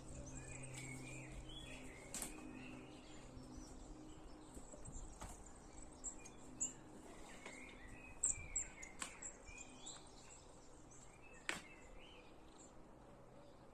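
Small birds chirping and twittering repeatedly, with a few sharp clicks scattered through and a faint low hum in the first few seconds.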